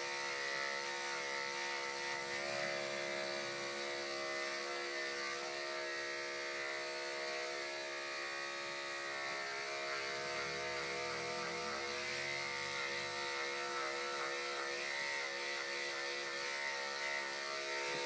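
Electric pet grooming clippers running steadily, a constant motor hum as they shave a dog's coat.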